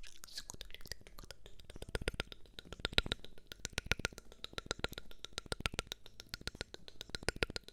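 Rapid close-up tapping or clicking, about eight to ten quick clicks a second, louder from about two seconds in.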